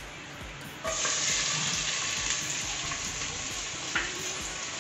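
Sliced onions dropped into hot ghee and sunflower oil in an aluminium pressure cooker, bursting into a steady sizzle about a second in. There is a light knock near the end.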